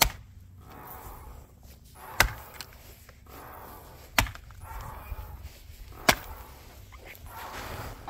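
Four heavy strikes of a Fiskars axe, about two seconds apart, into a willow round that has another axe stuck in it, to split the round and free the stuck axe.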